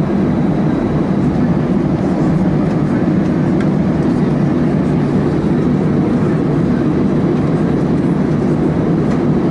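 Steady rumble of an Airbus A320 taxiing, heard inside the passenger cabin: the jet engines at idle with the airframe rolling.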